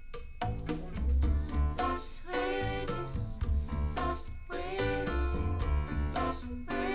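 Recorded music in an instrumental stretch of a song, with a bass line that moves from note to note, regular percussion hits and pitched instruments above.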